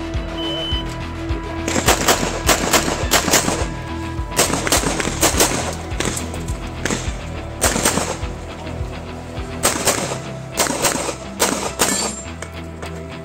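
Handgun shots fired in rapid strings of several shots each, with short pauses between strings, over background music.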